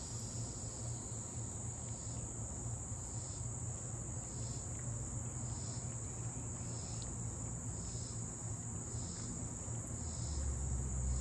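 Crickets chirping steadily: one continuous high trill, with a softer chirp repeating about once a second. A low hum runs beneath, and a low rumble swells near the end.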